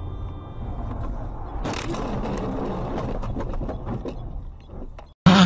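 Road noise inside a car, then about a second and a half in a sudden crash as the car is hit or slides into something, followed by a few seconds of scraping and crackling that fades out.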